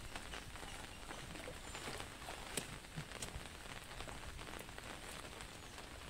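Rain falling on open floodwater: a faint, steady hiss with a few sharper ticks of single drops.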